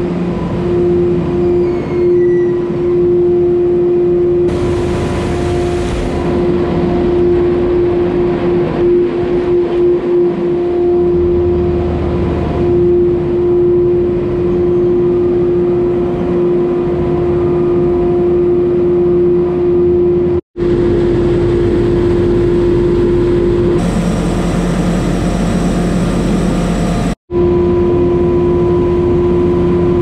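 Mobile grain-rolling lorry running steadily as it rolls barley, a continuous machine hum with one strong steady tone. The sound drops out abruptly twice in the last third, changing slightly after each break.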